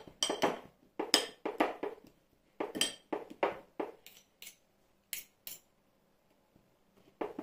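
A fork clinking against a bowl over and over while garlic cloves are mashed in olive oil: irregular sharp clinks for about five seconds, then a pause and one more clink near the end.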